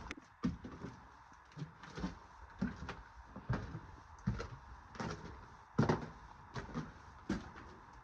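Footsteps climbing a staircase: a series of irregular thuds, roughly one every half second to a second.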